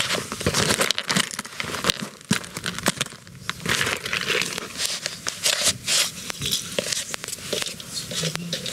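Close rustling of bedding, clothing and a plush toy being handled: an irregular crinkling with many small clicks.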